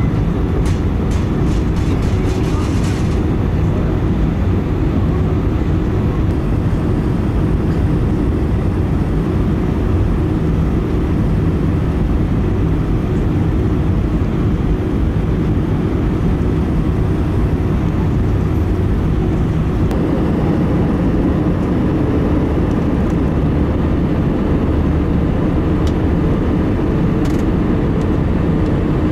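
Jet airliner cabin noise heard from a window seat over the wing during the descent: steady engine and airflow rush. The low rumble grows deeper and stronger about twenty seconds in.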